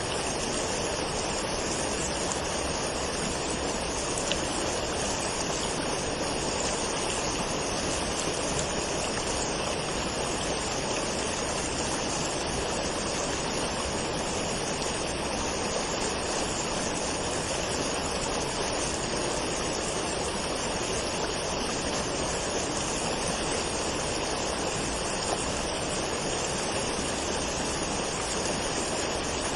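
Waterfall: water falling and rushing in a steady, even noise.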